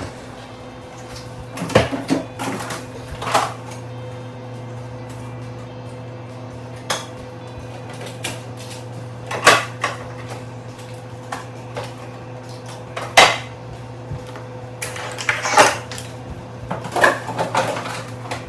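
Scattered knocks and clatter of household items being handled and set down on a hard surface, several sharp ones spread out and a busier run near the end, over a steady low hum.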